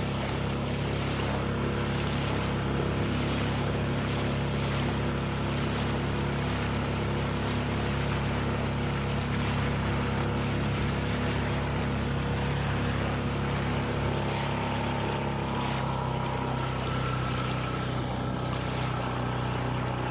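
A boat's motor runs steadily under wind and water noise, its pitch dropping slightly about 16 seconds in.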